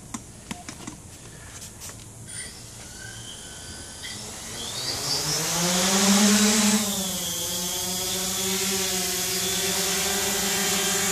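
Tarot 680 Pro hexacopter's electric motors and propellers spinning up. After a few faint clicks, a pitched buzz rises in pitch and loudness about four to six seconds in as it throttles up to lift off, dips slightly, then holds as a steady hovering drone.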